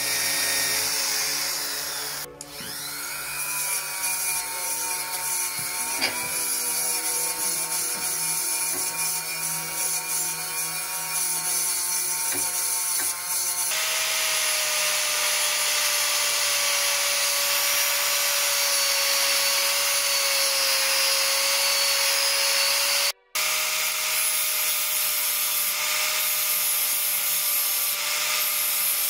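An electric drill with a small grinding bit runs against a titanium bicycle frame's weld with a steady whine, smoothing the rough TIG weld. About halfway through, an angle grinder takes over, grinding and sanding the hard titanium weld with a louder, rougher sound, briefly cut off near the end.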